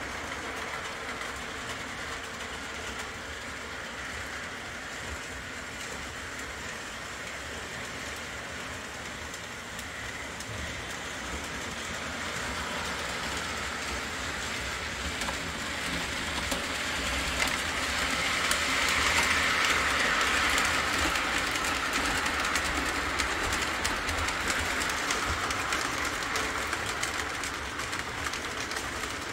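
O-gauge model train running on the layout track, its wheels clicking and rumbling over the rails. It grows louder as it comes close about two-thirds of the way through, then eases off.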